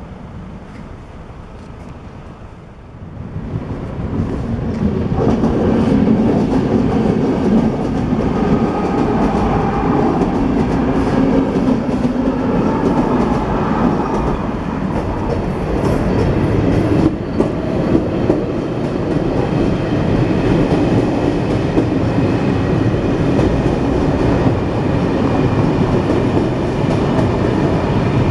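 A train passing over a railway level crossing. It grows loud about four seconds in and then runs on steadily with the rumble and clatter of its wheels on the rails.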